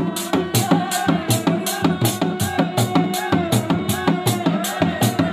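Sundanese reak music played live: dog-dog drums beaten with sticks in a fast, steady rhythm of about four strokes a second, under a wavering, ornamented tarompet (Sundanese shawm) melody.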